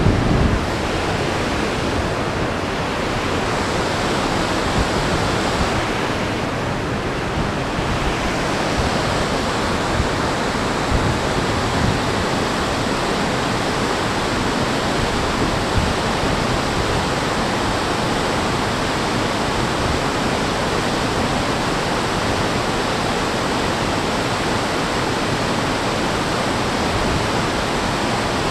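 Glacial meltwater stream rushing over rock: a loud, steady rush of water.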